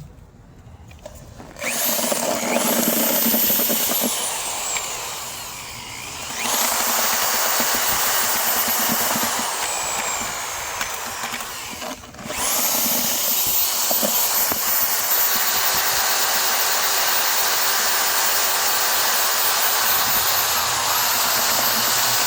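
Electric drill with a paddle mixer churning Portland cement mortar in a bucket. The motor spins up about two seconds in, slows and picks up again, stops briefly about halfway through, then runs steadily at a high whine.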